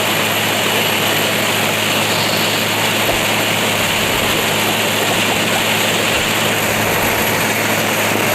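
A river passenger boat's diesel engine running steadily under way during a race, a constant low drone with an even rush of wind and water over it.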